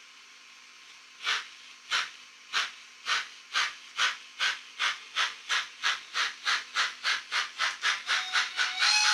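Sound decoder of a Fleischmann N-scale BR 94 steam locomotive model playing steam chuffs through its small speaker as the locomotive pulls away. After a second of faint hiss the chuffs come slowly, then steadily quicken to about four a second. A whistle comes in right at the end.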